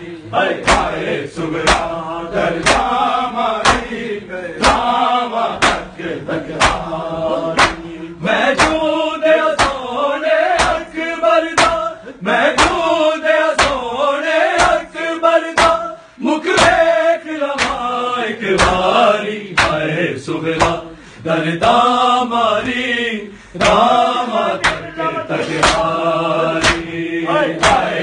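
Shia matam: men chant a mourning noha while bare-chested mourners strike their chests with open palms. The slaps land in a steady beat under the chanting.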